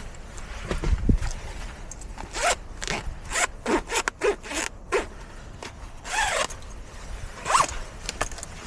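A zipper pulled in a run of quick short strokes, then two longer pulls near the end, with a low thump about a second in.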